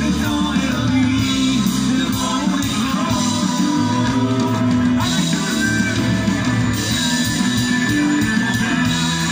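Live folk-rock band playing a song on stage, with electric guitars, bass and drums, and singing, heard from the crowd.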